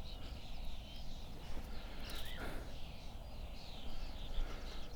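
Several birds singing around a pond: many short, high chirps and trills scattered throughout, over a steady low rumble of background noise.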